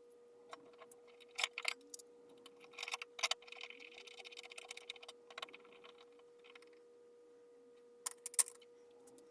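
Scattered light clicks and clatters of small hard objects being handled, with a brief stretch of rustling or scraping in the middle, over a faint steady hum.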